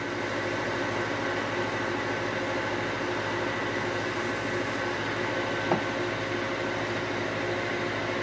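Wood lathe running at a steady speed with a steady whine, while a polishing ball is held by hand against the spinning fir handle to buff in the wax. A small knock about six seconds in.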